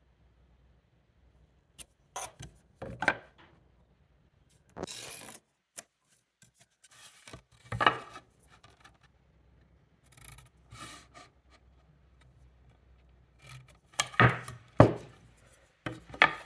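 Timber being marked out by hand: tools set down and moved on wood make scattered sharp knocks and taps, the loudest cluster near the end, with a short scraping stroke of a marking tool drawn along the wood.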